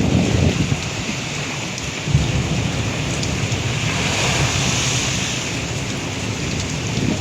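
Typhoon-force wind gusting across the microphone in a low rumble, over a steady hiss of rain and pounding surf.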